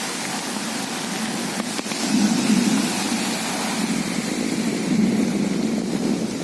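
Thunderstorm: steady heavy rain with low rolling thunder that swells about two seconds in and again near the end.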